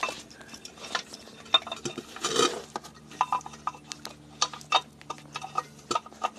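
Spare-tire hoist under a car being cranked with the jack handle to lower the spare: metal clicking and clinking, irregular at first and coming more often in the second half, with a short scrape about two and a half seconds in.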